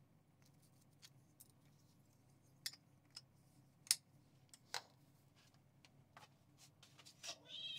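Scissors snipping a Persian cat's fur: a handful of faint, sharp snips scattered irregularly over several seconds.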